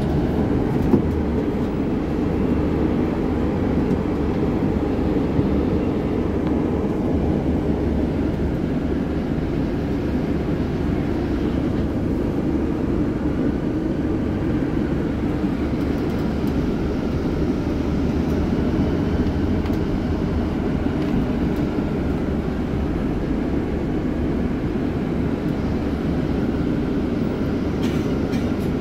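Steady low rumble of a double-decker bus's engine and running gear, heard from inside on the upper deck.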